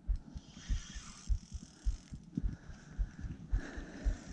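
Daiwa Ninja LT2500 spinning reel being wound against a heavy fish, with an irregular run of low knocks from handling the rod and reel.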